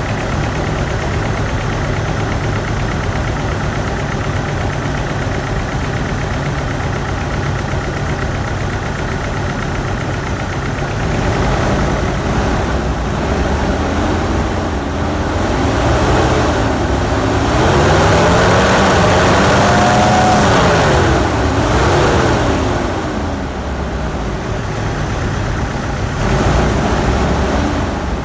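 GMC 2.8L inline-four engine idling, revved up and down several times about halfway through, then settling back to idle. It is running with cylinder 3 misfiring from a broken ignition coil.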